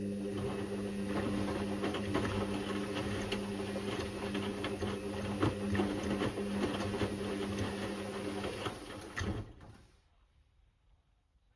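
Indesit IWC6165 washing machine running: a steady mechanical hum with rapid rattling clicks, which cuts off about nine and a half seconds in.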